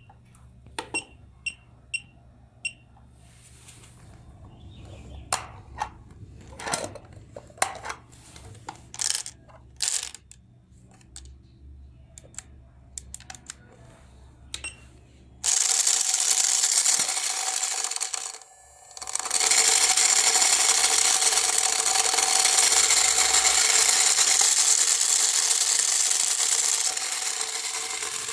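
Four short electronic beeps and some clicks and knocks. About fifteen seconds in, a small electric motor and its plastic gears start up suddenly and run loudly with a steady whine. They stop for a moment and start again.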